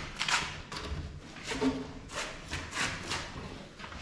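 Wooden kitchen cabinets being handled: a series of irregular short knocks and scrapes of wood as the joined cabinet run is moved and turned over.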